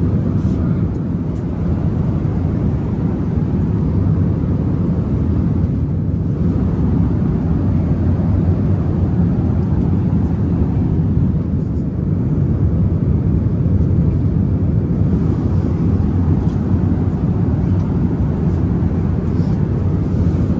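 Airbus A380 cabin noise in cruise: a steady low rumble of engines and airflow heard from inside the passenger cabin.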